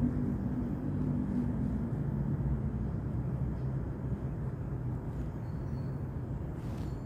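A steady low rumble with a faint low hum, of the kind a running engine makes.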